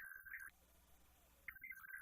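Emergency Alert System SAME header, faint: a buzzy digital data burst of two rapidly alternating tones. It stops about half a second in, and the next identical burst starts about a second later.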